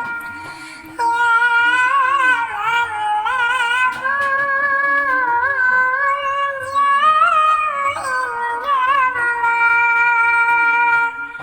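A high, sweet voice singing a sholawat melody: long held notes with wavering ornaments and slides. There is a brief lull about the first second, after which the singing carries on without a break.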